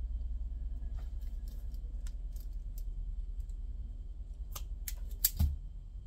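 Small wire cutters snipping and trimming the insulated wire ends of a power cord: scattered sharp clicks, with the loudest cluster about five seconds in, over a steady low hum.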